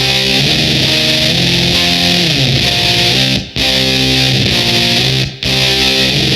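Electric guitar played through a Wyse Audio Devices Cough Syrup two-transistor fuzz pedal: thick, fuzzed sustained notes and chords. There is a downward slide in pitch about two and a half seconds in, and two short breaks in the playing, about three and a half and five and a half seconds in.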